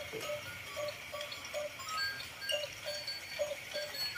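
Animals calling: a run of short, evenly pitched calls, two or three a second with a pause around the middle, and faint high chirps above them.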